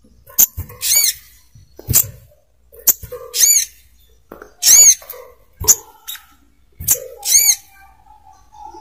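Sogok ontong bird calling: a series of short, sharp, high chirps, about one a second, several of them arched notes that rise and fall.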